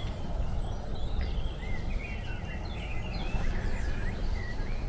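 Small birds singing and chirping in the trees, many short twittering notes, over a steady low rumble on the microphone.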